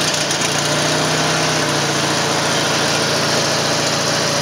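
Huskee riding lawn mower's engine running steadily just after starting, its tone settling a little lower about a second and a half in as the choke is worked. It runs smoothly.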